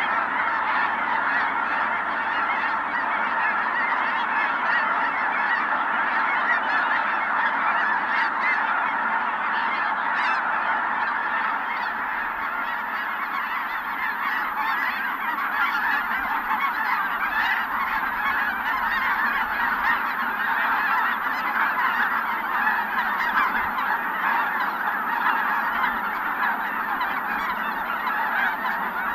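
Large flock of Ross's geese calling all at once, an unbroken chorus of overlapping honks and cackles at a steady level.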